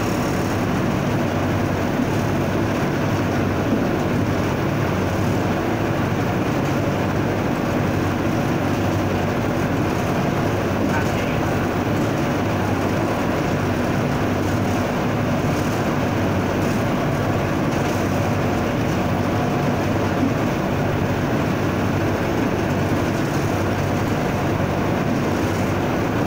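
Diesel locomotive engine running steadily under power, with the train running along the track, heard from inside the driver's cab of a GE CM22-7i diesel-electric locomotive.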